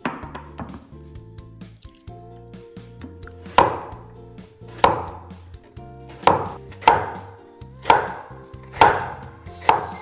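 Chinese cleaver chopping a raw potato on a wooden chopping board: seven sharp knocks of the blade against the board, about one a second, in the second half. Chopsticks clatter briefly against a porcelain bowl at the start, and light background music plays throughout.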